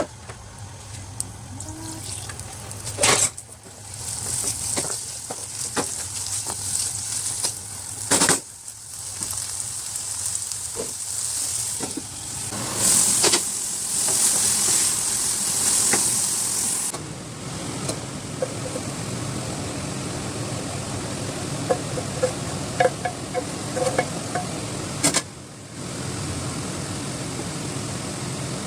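Tempeh stir-frying in a pan, sizzling, with a spatula stirring and now and then knocking sharply against the pan. The sizzle is loudest for the first half, then settles to a steadier, softer hiss.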